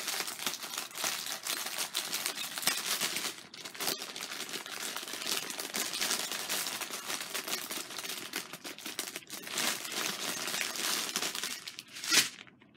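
Clear plastic packaging crinkling and rustling as hands work open a pack of diamond-painting gem bags, with one louder crinkle near the end.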